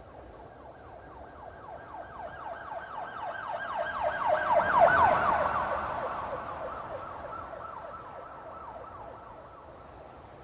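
Police car siren in a fast yelp, about five wails a second. It grows louder to a peak about halfway through, then drops slightly in pitch and fades as the car passes by.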